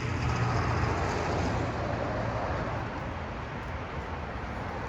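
A motor vehicle running with a steady low rumble. A rush of noise swells over the first two seconds, then eases off.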